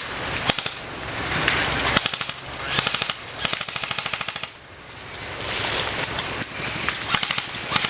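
Airsoft guns firing full-auto, several bursts of rapid clicking shots, over a steady hiss that is strongest in the first two seconds.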